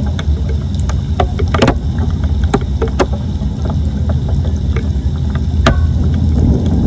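A steady low rumble with scattered sharp clicks and knocks.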